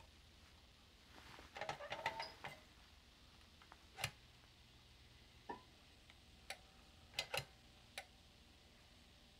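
Crinkly rustling of Halyard H600 mask fabric being positioned on an impulse heat sealer, then a sharp click as the sealer's arm is pressed down, followed by a handful of lighter clicks from the sealer arm.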